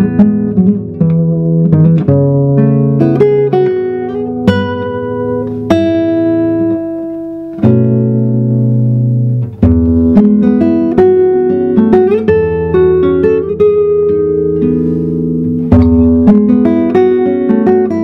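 Solo classical guitar playing a composed piece: plucked melody notes over chords. Near the middle a chord rings for about two seconds and is stopped short, then quicker notes resume.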